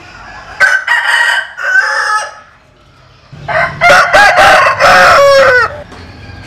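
Rooster crowing twice, a shorter crow and then a longer one, loud and close, its pitch dropping at the end of the second crow. The bird is from a flock of Vietnamese–American crossbred butterfly chickens (gà bướm).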